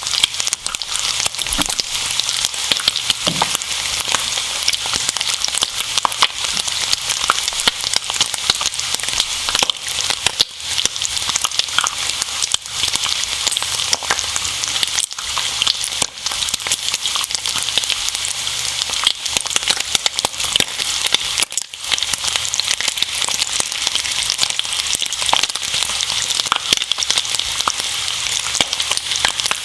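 Bacon and eggs frying in a pan: a steady sizzle with dense, fine crackling pops.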